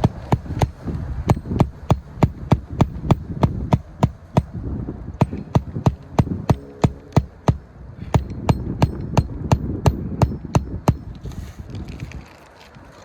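Rapid, evenly spaced sharp knocks, about three or four a second, over a low rumble; they stop about eleven seconds in.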